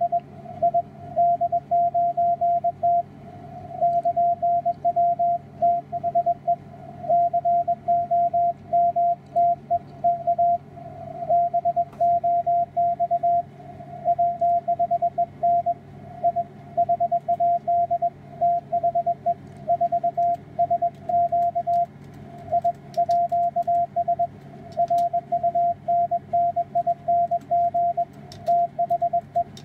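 Morse code (CW) signal from an amateur radio contact on the 160-metre band, received on a software-defined radio: a single steady tone keyed on and off in dots and dashes, over a low hum and band noise, with a few faint crackles in the second half.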